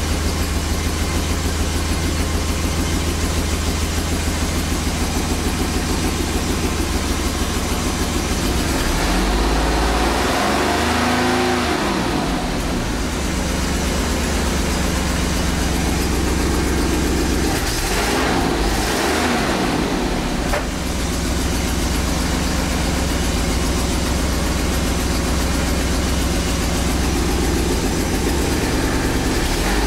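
Twin-turbo Jaguar V12 idling steadily at about 800–900 rpm, with its ignition timing freshly corrected on a Megasquirt engine management system. It is revved and falls back to idle twice, about 9 seconds in and again about 18 seconds in.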